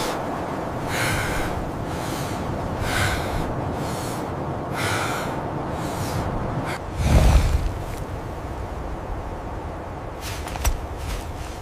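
Heavy, rhythmic breathing, one breath about every two seconds, over a steady low rumble. A heavy low thud comes about seven seconds in, and a sharp knock comes near the end.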